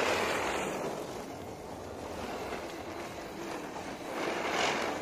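Ground firework spraying a shower of sparks, hissing steadily, with the hiss swelling near the start and again near the end.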